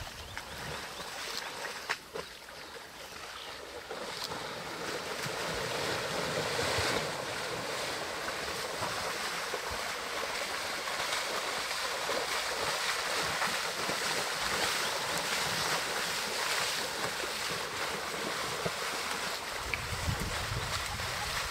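Water sloshing and splashing as African elephants, an adult with two calves, wade through a shallow river.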